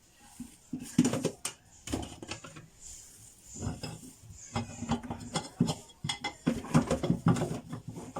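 Kitchen utensils and dishes being handled: irregular clinks and knocks of metal and crockery against each other.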